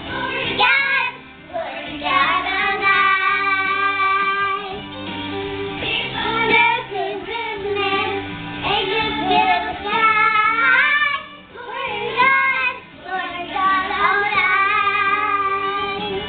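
Two young girls singing a Christmas song loudly, close to shouting, with long held notes and short breaks between lines.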